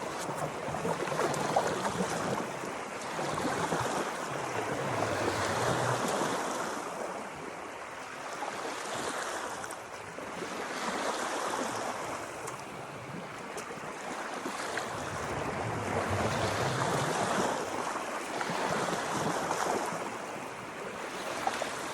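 Lake water lapping and splashing against a fishing boat's hull, swelling and easing every two to three seconds.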